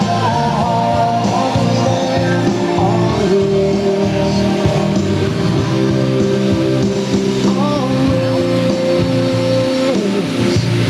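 Background music with guitar and a singing voice; no firework bangs stand out.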